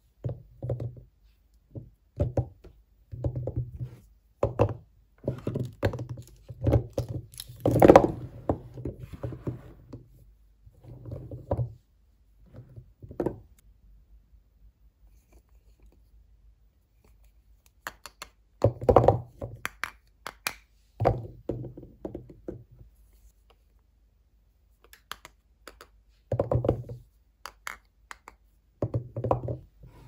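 Hard bars of soap knocking dully against one another and against a heap of bars as they are picked up, handled and set down. The knocks come in quick clusters, with a few quieter seconds in between.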